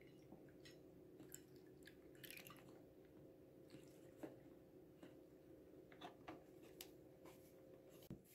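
Near silence: room tone with a steady low hum and a few faint small clicks and soft rustles.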